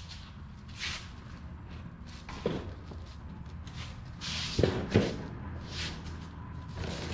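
A plastic toy-car body being handled and lifted off its steel frame: shuffling feet and plastic rustling and scraping, with a sharp knock partway through and two louder knocks in quick succession later on. A steady low hum runs underneath.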